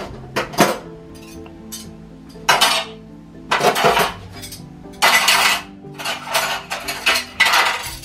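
Dishes and steel utensils clattering and clinking as they are set into a tabletop dishwasher's racks: a string of uneven knocks with short metallic ringing, heaviest around the middle and near the end.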